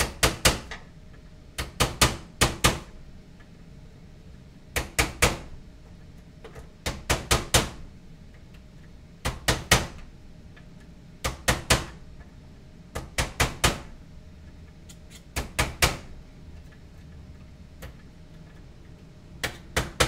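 Small hammer tapping laser-cut wooden parts together, in quick bursts of three to five sharp taps repeated about every two seconds, with a longer pause before the last burst near the end. The taps seat tight-fitting tabbed joints down flush.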